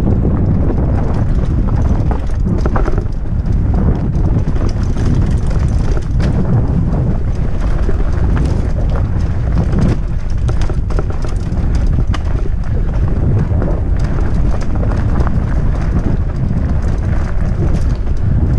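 Fatbike ridden fast over a dirt forest trail: wind buffeting the microphone in a constant low rumble, with frequent knocks and rattles as the fat tyres and frame go over roots and bumps.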